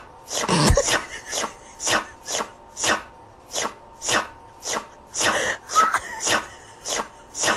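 Tabby Scottish Fold cat licking its paw close to the microphone: a steady run of short rasping tongue strokes, about three a second.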